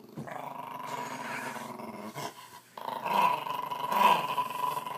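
Small terrier growling in a long, continuous engine-like rumble as its ears are worked like a motorbike throttle. It breaks off briefly about two seconds in, then comes back louder, swelling twice like revs.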